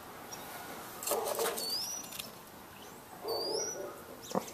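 Bird calls: two short calls about two seconds apart, each ending in a quick rising chirp, with one sharp click near the end.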